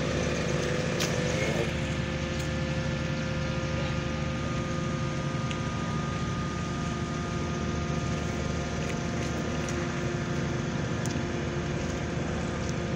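Ship's engine running steadily. It makes a low, even hum with several steady whining tones above it, and a few faint clicks.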